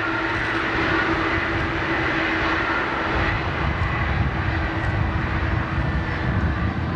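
Airbus A319-133CJ's IAE V2500 turbofan engines running as the jet rolls out along the runway after landing: a steady rushing noise with a held low hum and a high whine.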